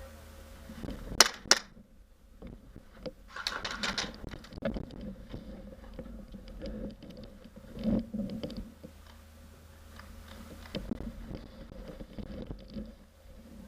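Two sharp shots from an airsoft pistol about a third of a second apart, followed by a brief hiss and then scattered rustling and low thuds of movement.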